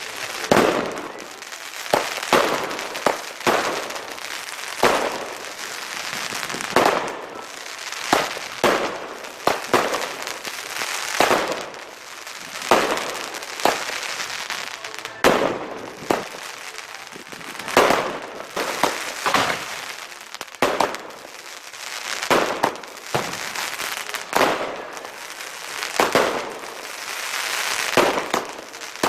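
Fireworks going off in a continuous barrage: sharp bangs at irregular intervals, often several a second, with steady crackling and hissing between them.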